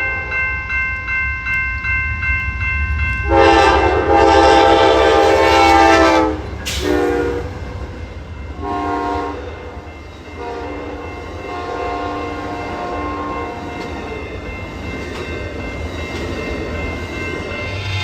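Amtrak Southwest Chief passenger locomotive sounding its multi-chime horn for the grade crossing: a long blast of about three seconds, two short blasts, then another long blast, the later blasts slightly lower in pitch. Crossing bells ring in a steady pulse before the horn starts, over the low rumble of the train.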